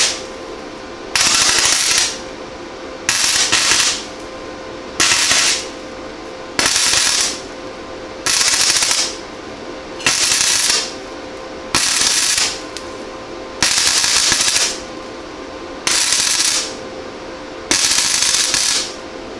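Flux-core wire-feed welder arcing on 22-gauge sheet steel in short bursts, each just under a second, about once every two seconds, as a burned-through hole is filled bit by bit. A steady hum sounds between the bursts.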